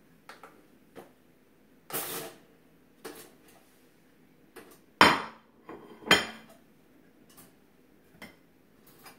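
Clicks and clatter at a four-slice stainless-steel toaster as the toast is popped up and lifted out onto a ceramic plate: a short rattle about two seconds in, then two loud, sharp clanks about a second apart with brief ringing.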